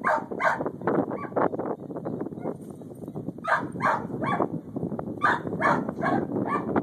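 Giant Schnauzer barking in short, sharp barks that come in quick runs of two to four, with pauses of a second or two between runs.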